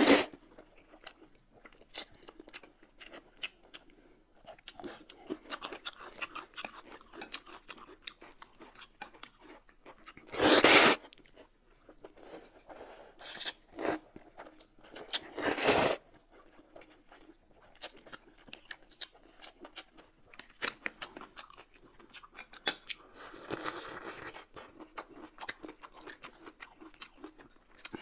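Close-up eating sounds: wet chewing and smacking throughout, with two loud slurps of noodles about ten and fifteen seconds in and a softer slurp a little before the end.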